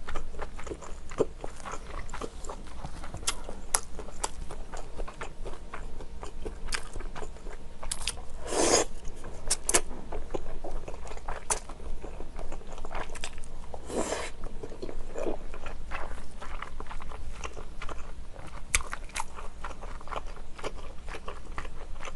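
Close-up chewing and wet mouth clicks of a person eating wide Chinese glass noodles in a spicy kimchi-rib broth, with two longer, louder slurps about nine and fourteen seconds in.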